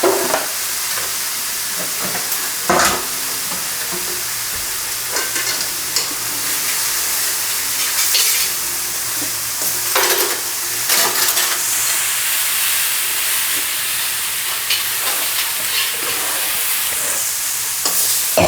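Chopped spinach sizzling steadily in an aluminium kadai over low heat as it wilts down, with a spatula stirring and scraping the pan every few seconds.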